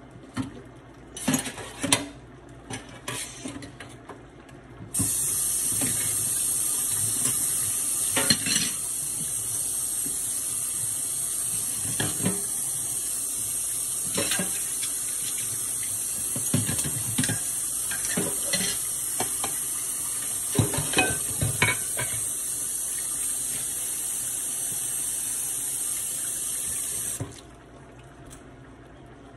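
Kitchen tap turned on about five seconds in and left running steadily for some twenty seconds, then shut off sharply, while dishes and utensils clink and knock under the water. A few clinks of dishes come before it.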